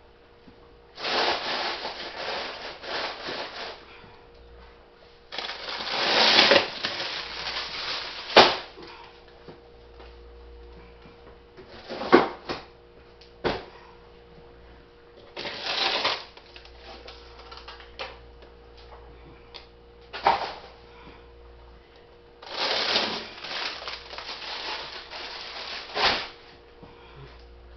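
Frozen food packages and plastic bags being handled out of a chest freezer: bursts of rustling a second or two long with sharp clunks and clicks among them, over a faint steady hum.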